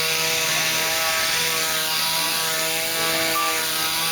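Two-stroke chainsaw engine running steadily at high revs, holding a constant pitch.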